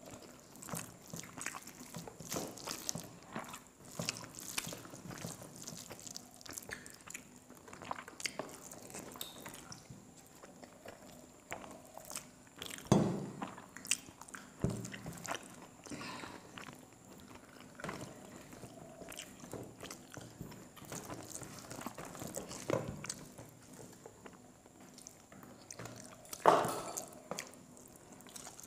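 Close-miked sounds of eating rice and chicken curry by hand: chewing, lip smacks and small wet clicks of fingers in the food. Two louder bites stand out, one about halfway through and one near the end.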